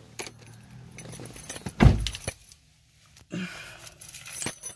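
Car keys jangling and clicking as a key is worked in a car door lock, with one heavy thump about two seconds in.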